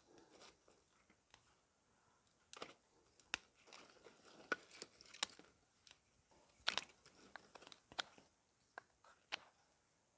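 Faint, irregular crunches and clicks of dry sticks being picked through and handled.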